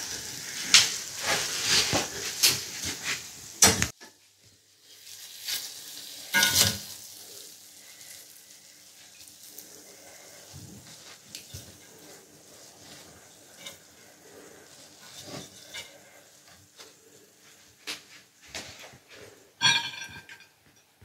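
A metal spoon stirring and scraping cooked Kabuli pulao (rice, lamb and carrots) in an aluminium pot, with sizzling from the hot pot in the louder first few seconds. Near the end a spoonful of rice is dropped onto a plate with a short, loud scrape.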